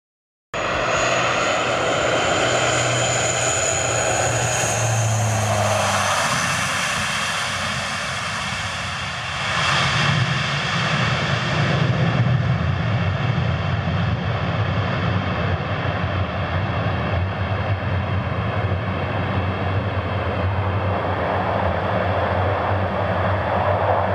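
Propeller engines of a military transport plane landing on grass: a steady propeller drone with a high turbine whine that falls in pitch over the first few seconds. About ten seconds in, the engine noise swells louder and rougher, then runs on steadily.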